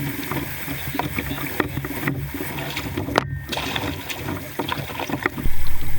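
Canoe being paddled on a river: paddle strokes in the water with many small drips and splashes, and a louder low rumble near the end.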